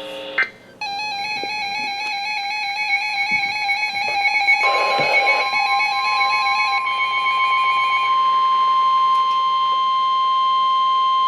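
NOAA Weather Radio warning alarm tone: a steady, loud single tone near 1 kHz that starts about four and a half seconds in, marking the start of a warning broadcast. Before and under its first few seconds, a warbling electronic beep with overtones sounds and then stops.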